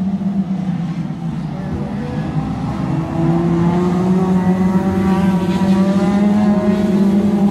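2.0-litre Hot Rod race car engines running hard around an oval. About three seconds in, the sound grows louder and the engine note climbs as a car comes past close by.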